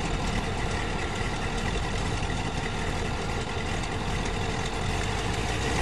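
Engines of a motorhome and a school bus, a 360 Dodge V8 and a 7.3 International diesel, idling steadily.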